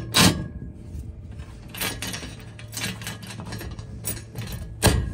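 Aluminium solar-rail splice bracket being slid along the rail and fitted with its bolt: metal clinks, knocks and scrapes. There is a sharp knock just after the start and another near the end.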